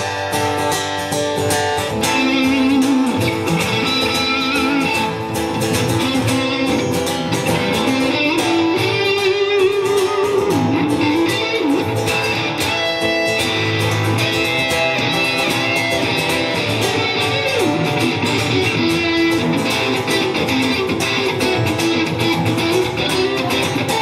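Electric guitar playing an instrumental lead line with bent, wavering notes over a strummed acoustic guitar.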